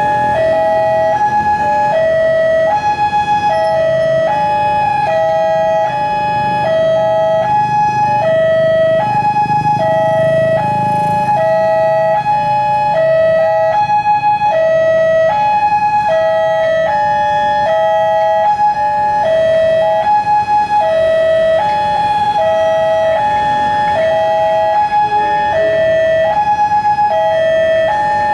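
Railway level-crossing warning alarm sounding continuously, an electronic two-tone signal switching back and forth between a lower and a higher pitch, warning of an approaching train as the barriers close. A low rumble runs under it for a few seconds midway.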